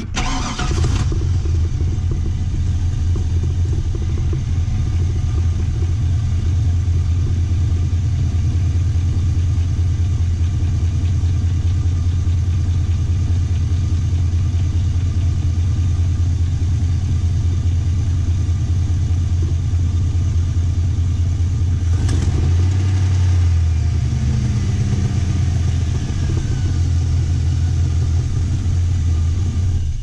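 Chevrolet Silverado 1500's V8 idling steadily, its pitch wavering briefly a little past twenty seconds. It is running after a cracked exhaust manifold on one bank was replaced; the other bank still has an exhaust leak that causes a ticking.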